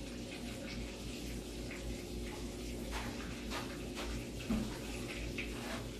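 Food frying in oil in a pan: a steady sizzle with scattered crackles and pops, over a low steady hum.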